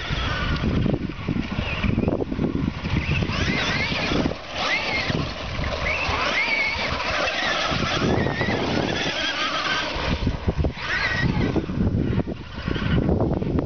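Brushless electric motor of an RC car whining, its pitch rising and falling repeatedly with the throttle, over rough rumbling tyre and ground noise.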